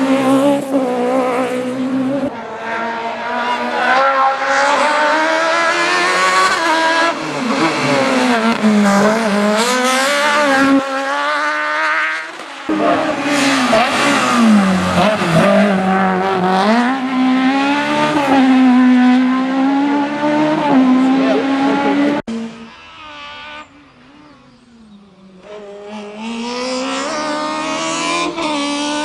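Racing Fiat 127's four-cylinder engine running hard, its pitch rising and falling again and again through revving, gear changes and lifts. About 22 seconds in it drops sharply to a much quieter sound, then builds up again.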